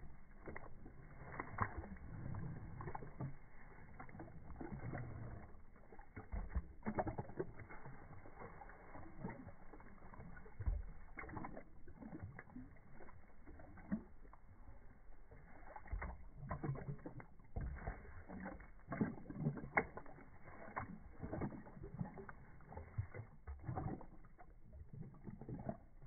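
Cane Corso lapping water from a drinking fountain's jet: irregular wet slurps and splashes of its tongue in the stream, with water spattering into the steel basin.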